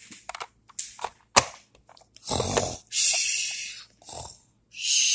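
A few light clicks and taps of a plastic toy being handled, then a child imitating snoring: a few long, hissing snore sounds starting a little over two seconds in, the dolls' pretend bedtime.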